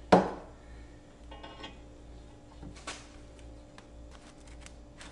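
A sharp metallic knock just after the start, then a few faint clicks and ticks of hand tools being handled on a steel battery box as a tap is set into a drilled hole.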